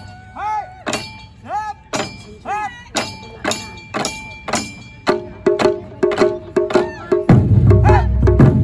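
Japanese taiko drum group: sharp wooden stick clicks about twice a second, each followed by a short rising-and-falling shout. About five seconds in the clicks quicken, and near the end the big drums come in loud with deep strikes.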